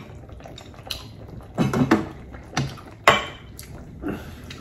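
Chopsticks clicking and clinking against ceramic bowls and a clay hot pot as food is picked out, a handful of short sharp sounds with the loudest about three seconds in.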